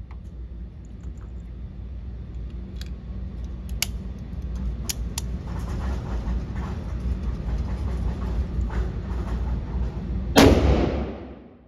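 A single loud shot from a Bond Arms Cyclops .45-70 derringer firing a 300-grain load, about ten seconds in, echoing for about a second around an indoor range. Before it, a steady low rumble with a few faint clicks.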